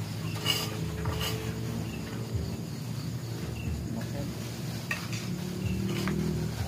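Plates and bowls clinking about four times as dishes are handled on a wooden table, over a steady low hum, with insects chirping faintly in the background.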